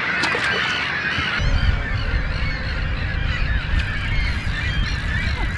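A large flock of waterbirds calling continuously, many short overlapping calls. A low rumble of wind on the microphone comes in about a second and a half in.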